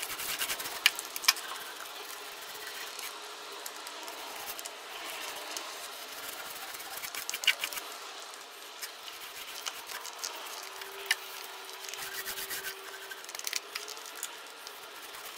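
Rubbing and scratching of hands working materials in a plywood boat compartment, with a few sharp clicks and a faint steady hum underneath.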